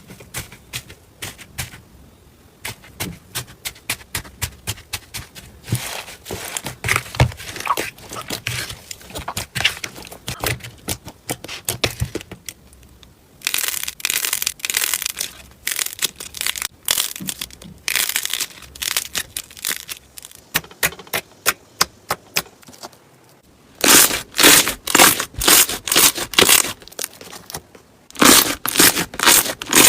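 Slime being squeezed and pressed by hand, giving dense runs of sharp crackling clicks and pops, louder in spells about halfway through and near the end.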